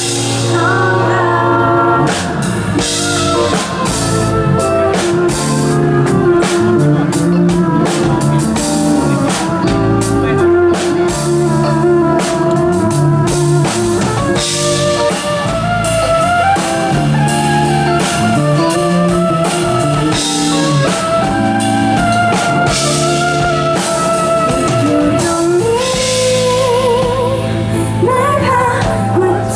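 Live pop band playing on stage: drum kit, electric bass and keyboard, with a woman singing.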